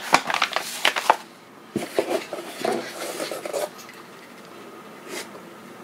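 Paper instruction booklets being handled and slid across a tile floor: a quick flurry of rustles and taps in the first second, then more rustling and scraping about two to three and a half seconds in, before it settles to quiet room tone.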